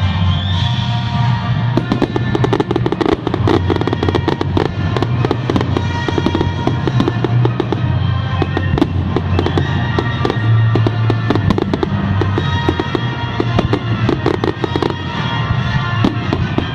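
Fireworks display with rapid, dense crackling and bangs, thickening about two seconds in, over loud music with a steady bass.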